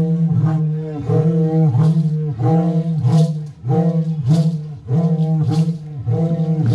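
A group of voices chanting in unison in short, repeated low-pitched phrases about once a second, with sharp percussive accents, as a ritual dance begins.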